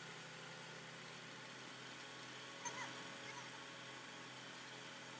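A crane's engine idling faintly with a steady hum. A brief faint chirp about two and a half seconds in.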